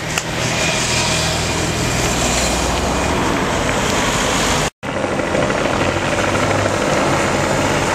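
Engines of passing race-convoy vehicles, a team service car and motorbikes, giving a steady low drone. It cuts out completely for a moment just after the middle, then resumes.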